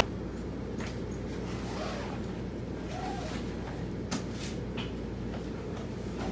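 Steady low background hum with a few faint clicks and knocks.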